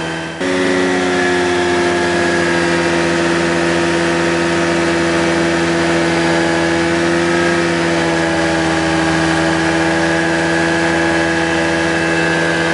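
Rans Coyote ultralight aircraft's engine running steadily in flight, heard from inside the cockpit as a loud, even drone. There is a brief dip in level just after the start.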